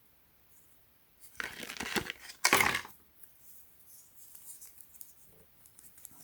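Packaging being handled and torn open: a rustling, tearing burst lasting about a second and a half, loudest near its end, then light handling sounds.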